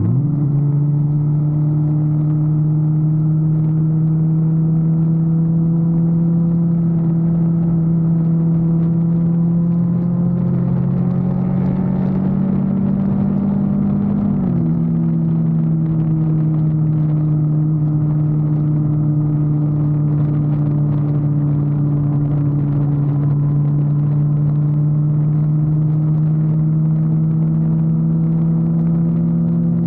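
Vehicle engine running at a steady cruise with a constant drone. Its pitch climbs gradually about halfway through, then drops suddenly, as at a gear change, and settles back into a steady drone.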